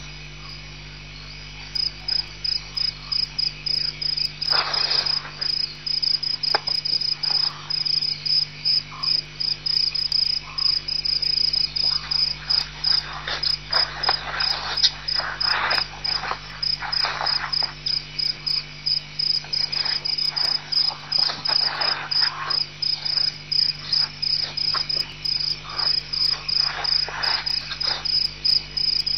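Crickets chirping at night, a steady, even run of high chirps that sets in about two seconds in, over a low electrical hum.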